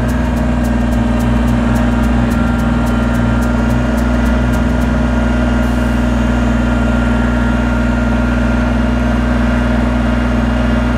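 Kubota compact tractor's diesel engine running steadily at a constant pitch while the tractor drives with a loaded front grapple.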